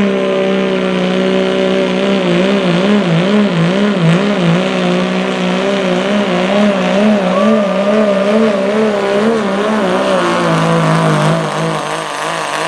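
Second-generation Dodge Ram pickup's Cummins diesel under full throttle, dragging a weight-transfer sled. The engine note warbles rapidly up and down through the middle of the pull, then settles lower and a little quieter about ten seconds in.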